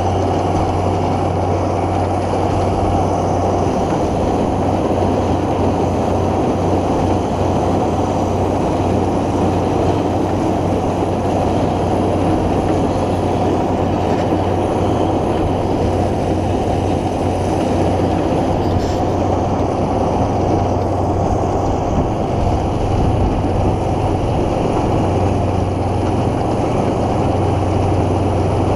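Tractor and tractor-driven machinery running steadily under load, a continuous low engine hum with a steady whine above it and no change.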